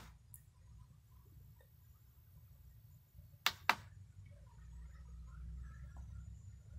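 A sharp double click about halfway through, a button on a sunrise alarm clock being pressed, over a low steady hum.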